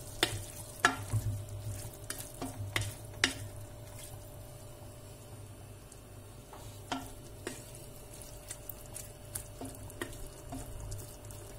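Wooden spoon stirring green beans and tomatoes in a pressure cooker pot, knocking and scraping against the pot, most often in the first few seconds, over the stew frying in the pot and a steady low hum.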